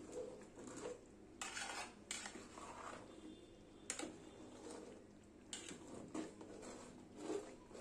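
Long metal ladle stirring rice and meat in a large aluminium pot, scraping and knocking against the pot's side at irregular intervals, about six times.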